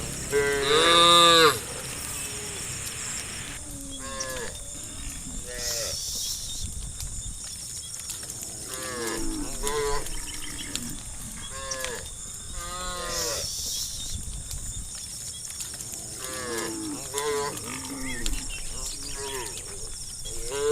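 Cattle mooing repeatedly: one loud call about a second long near the start, then many shorter calls throughout.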